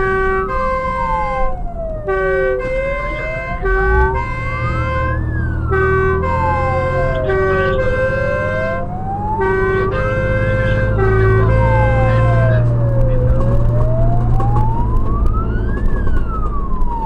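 Fire engine siren on a slow wail, rising and falling about once every five seconds. A two-tone horn alternates between a high and a low note over it and stops about twelve seconds in. The truck's engine rumbles underneath and gets louder near the end.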